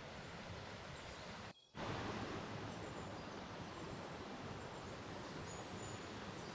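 Steady outdoor background hiss that drops out briefly about one and a half seconds in, then comes back slightly louder, with faint high chirps in the second half.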